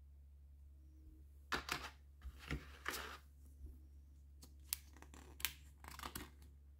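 Paper rustling and crinkling in a string of short bursts and crisp clicks as a folded instruction booklet is unfolded and its pages opened, over a steady low hum.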